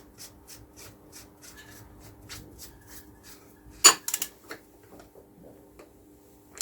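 Oil filter housing cap on a VW Passat 1.9 TDI being screwed back on: a run of light, evenly spaced clicks, about four a second, then a sharper click just before four seconds in and a few more after.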